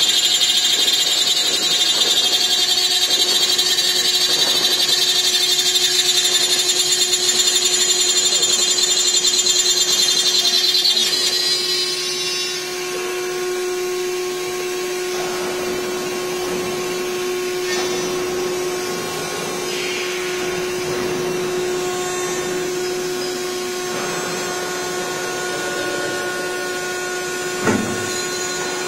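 Aluminium-profile CNC drilling and milling machine running. For about the first eleven seconds there is a loud high-pitched whine; it falls in pitch and stops, leaving a steady machine hum. There is a single thump near the end.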